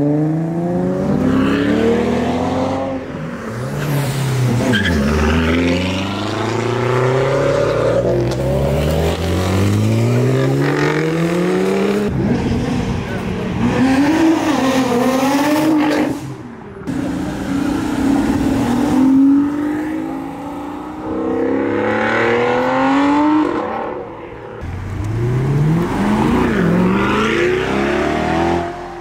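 Performance cars accelerating hard away one after another. Each engine's pitch climbs in rising sweeps through the gears, drops at the shifts and climbs again, several times over.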